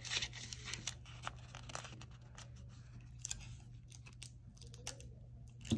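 Construction paper rustling and crinkling in the hands as it is bent and shaped, with scattered sharp clicks, over a steady low hum.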